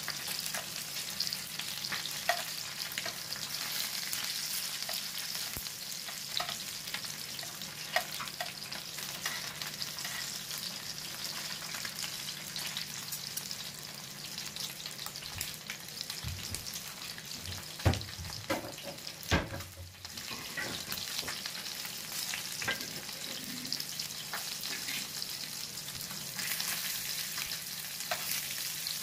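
Masala-coated kizhangan (sand whiting) fish shallow-frying in oil on a tawa: steady sizzling with many small crackles. Two sharp knocks stand out about two-thirds of the way through.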